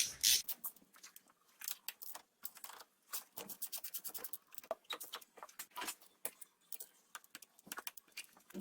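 Scattered light clicks and scrapes of metal tools and brake parts being handled while a front brake caliper is taken off, irregular with no steady rhythm.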